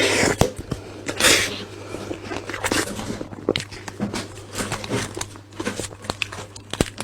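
Close-up eating sounds: irregular crunches, clicks and rustles of food being chewed, with two louder rustling bursts near the start and about a second in.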